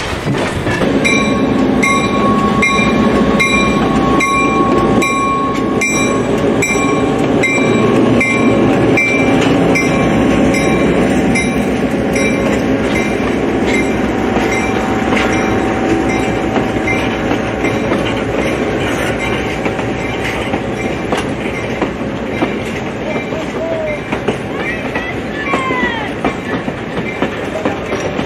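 Passenger train rolling past, its wheels clattering over the rail joints. A bell rings in steady strokes about twice a second through the first dozen seconds, and there are a few short squeals near the end.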